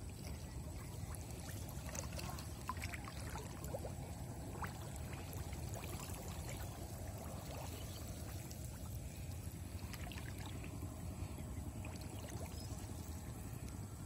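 Shallow water splashing, trickling and dripping as a gill net is lifted and worked by hand while wading, in small irregular splashes that are busiest in the first half and again near ten seconds in, over a steady low rumble.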